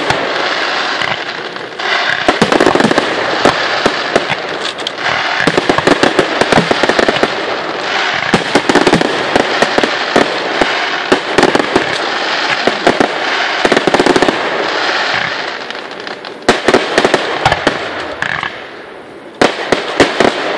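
Aerial fireworks going off: a dense, continuous crackling with many sharp bangs of shells bursting. The crackle eases off near the end, and then a few more bangs come.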